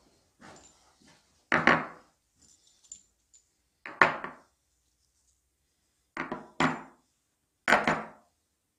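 Zinc-plated bolts being set down one by one on a wooden bench top: about five sharp knocks a second or two apart, each ringing briefly. Faint rustles and ticks of the hanging wires come between the knocks.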